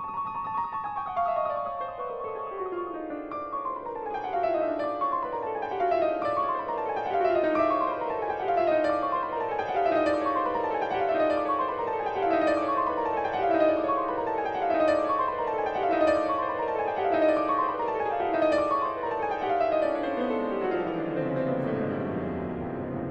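Grand piano playing rapid descending scale runs over and over, a new run starting about once a second and each ringing on into the next. Near the end a run carries on down into the bass.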